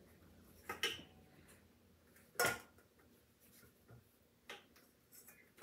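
Metal cake pans being handled as damp cotton cake strips are fastened around them: a handful of light clicks and knocks, the loudest about two and a half seconds in.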